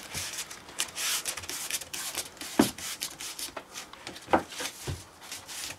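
Hands rubbing and pressing blue closed-cell camp mat foam down onto double-sided tape over a LARP sword core, in repeated hissy strokes with a few dull thumps.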